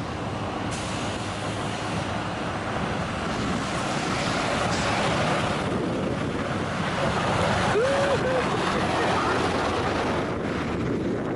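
Snowstorm wind buffeting the microphone: a loud, steady rushing that swells slightly in the middle, with one brief pitched sound about eight seconds in.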